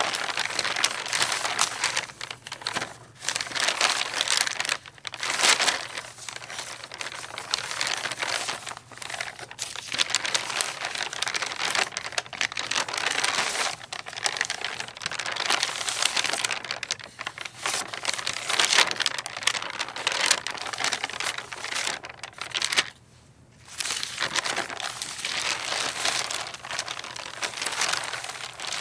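Sheets of paper rustling and flapping in the wind, in irregular gusts that swell and fade, with a brief lull about 23 seconds in.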